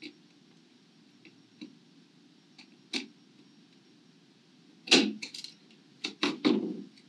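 Faint clicks of a small screwdriver driving mounting screws through a circuit board into standoffs, then a few sharper clacks of tools and small parts being handled on a cutting mat, the loudest about five seconds in and another group about a second later.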